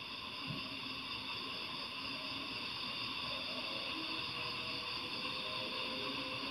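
Steady low hiss of background recording noise, with no distinct sound event.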